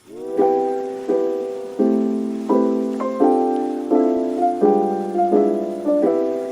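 Background music: keyboard chords struck about every 0.7 seconds, each fading before the next. The first one swells in at the start.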